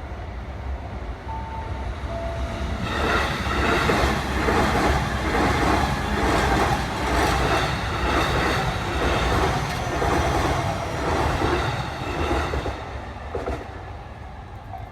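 Electric commuter train passing a level crossing at close range. It grows louder over the first three seconds, runs loud with a regular clatter of wheels for about ten seconds, then fades away near the end.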